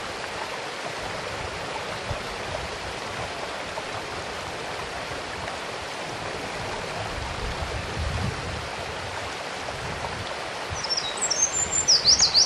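Steady rush of a mountain stream. About eleven seconds in, a Eurasian wren starts its loud, rapid, high-pitched song of quick trills, the loudest sound.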